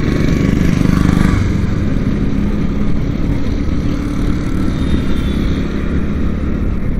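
Motorcycle engine running steadily while riding at road speed, with wind and tyre noise and surrounding traffic.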